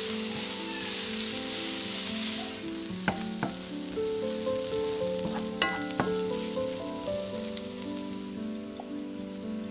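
Sliced onions sizzling in oil in a frying pan as they are stirred with a wooden spatula, with a few sharp taps of the spatula against the pan about three and six seconds in. Soft background music with sustained notes plays underneath.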